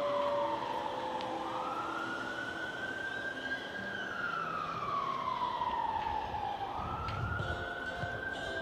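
A siren wailing, its pitch sweeping slowly down and back up twice.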